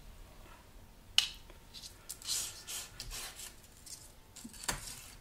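Fishing line rubbing and rustling between the fingers as a small swivel is knotted on, with a sharp click about a second in and another near the end.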